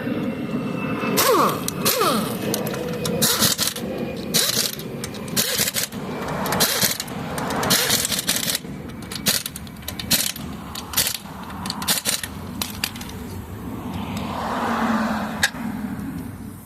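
Tire-repair work at a tire shop: an irregular run of sharp metallic clinks, knocks and short scraping bursts from tools and parts being handled.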